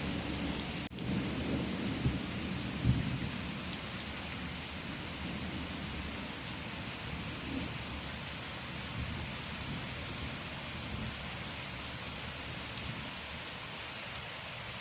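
Steady rain falling, with a low thunder rumble in the first few seconds that swells twice and dies away.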